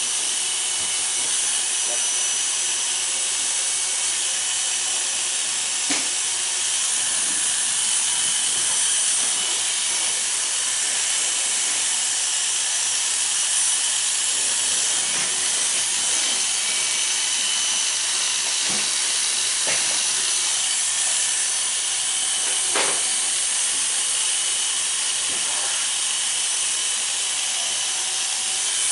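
Corded electric hair clippers running steadily, buzzing as they cut hair close over a comb and up the back of the head. A few short clicks come through.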